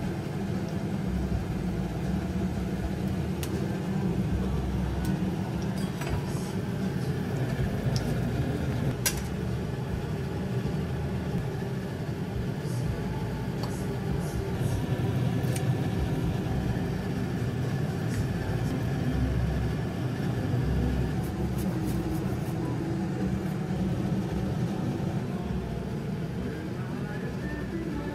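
Metal ladle and spatula clinking now and then against a steel wok and a plate as fried rice is scooped out and served, over a steady low kitchen rumble.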